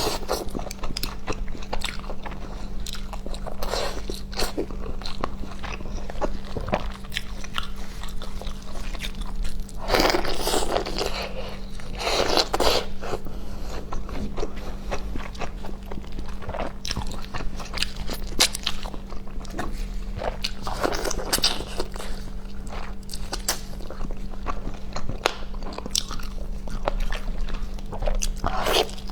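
Close-up mouth sounds of someone biting and chewing fatty leg meat, with wet clicks throughout and louder bites every few seconds. A faint steady hum runs underneath.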